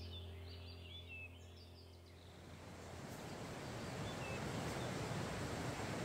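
Background music with a sustained droning note fades out over songbird chirps. About halfway through, the steady rush of a mountain stream fades in and takes over, with one more bird chirp.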